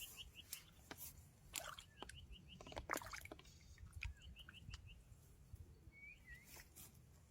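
Faint birdsong: a small bird repeating short, quick runs of five or six high chirps about every two seconds, with a couple of slurred whistles. A few scattered sharp clicks and rustles are heard between the calls.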